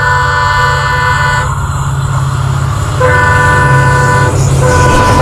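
An Indian Railways locomotive sounding its horn in long chord blasts, one ending about a second and a half in and another starting about three seconds in, with a short break near the end, over the steady low rumble of the approaching train.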